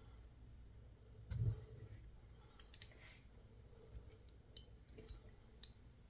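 Faint scattered clicks and light scrapes of small metal tools working inside a lock being disassembled, with a soft knock about a second and a half in.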